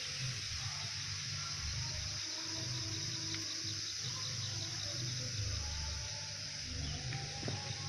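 Steady high-pitched insect chirring, with a low rumble underneath.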